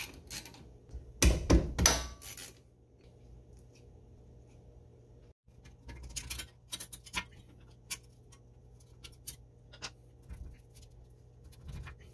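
Socket ratchet clicking in quick bursts as the brake caliper bolts are turned out, followed by scattered light metallic clinks and scrapes as the rusty caliper is worked loose from its bracket.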